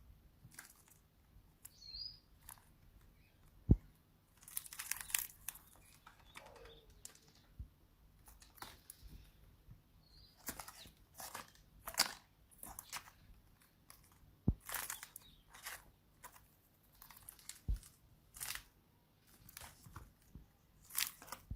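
Faint paper rustling and crinkling in many short scrapes, with three sharp clicks among them.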